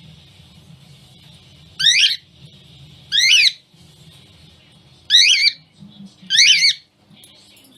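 Cockatiel screeching: four loud, high-pitched calls a second or two apart, each about half a second long with a wavering pitch.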